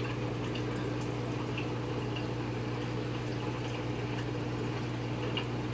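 Water trickling and bubbling in an aquarium over a steady low hum from its pump, with a few faint drip-like ticks.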